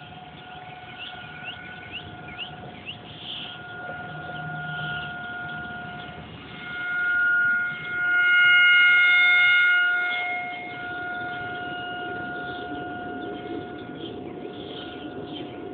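Outdoor storm warning siren sounding one steady, unwavering tone. It swells to its loudest about halfway through, then eases back to its earlier level.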